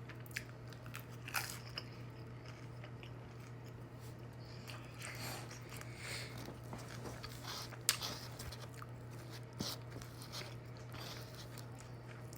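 Close-up mouth sounds of a person biting and chewing pizza rolls, with scattered sharp clicks from the bites and chewing, over a steady low hum.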